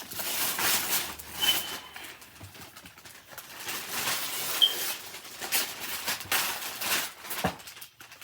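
Gift wrapping paper being torn and crumpled in a series of rustling rips, with two brief high squeaks, about a second and a half in and again a little past the middle.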